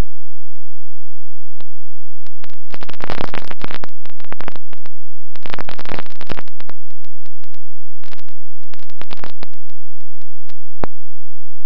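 Onboard-camera audio from a Bixler electric RC plane in flight: a steady low hum with three longer bursts of crackling, rushing noise and a few single clicks.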